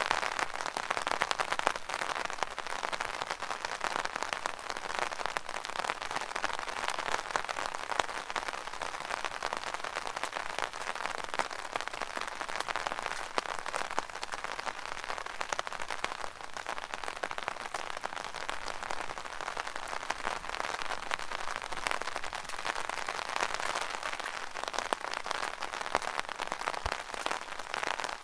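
Rain pattering steadily on an umbrella canopy, a dense unbroken patter of many small drop impacts.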